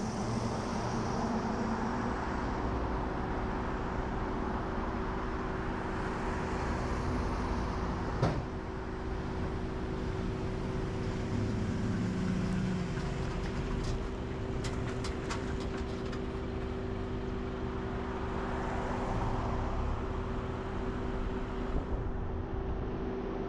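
Steady drone of a motor vehicle running, with a single sharp click about eight seconds in and a quick run of light ticks around fifteen seconds.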